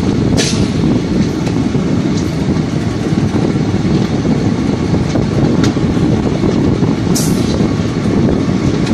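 Passenger train running along the track, heard from the coach's open doorway: a steady rumble of wheels and rushing air, with a few sharp high clicks and a brief high hiss about seven seconds in.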